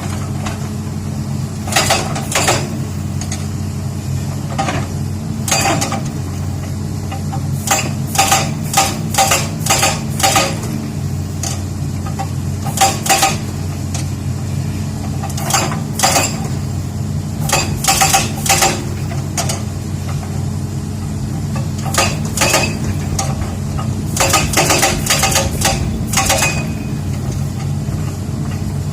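An excavator's hydraulic rock breaker hammering on hard rock in repeated bursts of sharp blows, over the steady low running of the excavator's diesel engine.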